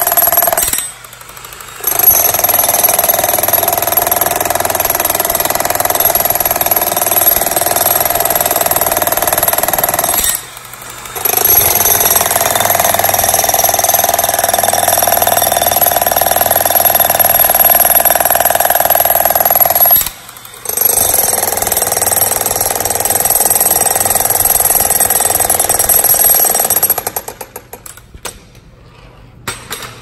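Pneumatic jackhammer chiselling into a concrete slab, running steadily with three short pauses, about one, ten and twenty seconds in. It stops with a few sputters near the end.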